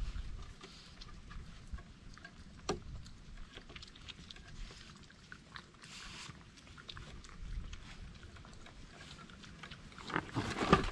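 Wild animals eating cookie crumbs up close: chewing and crunching with many small clicks, and a louder burst of crunching and rustling near the end.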